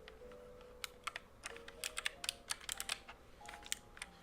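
Keys of a low-profile mechanical keyboard being pressed, sharp irregular clicks of a dozen or so key strokes.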